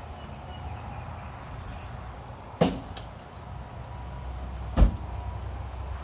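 Two sharp thumps about two seconds apart, the second louder and deeper, from a Chevy Silverado pickup's cab door being worked, over a low steady rumble.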